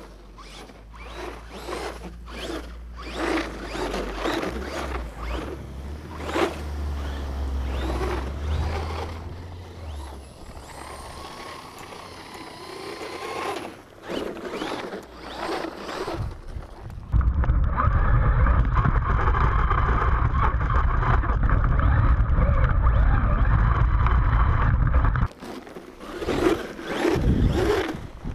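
Traxxas Slash 4x4 radio-controlled truck's electric motor whining and its tyres churning and scraping through fresh snow, in uneven surges. For about eight seconds in the second half a loud, steady rumble covers everything, then cuts off suddenly.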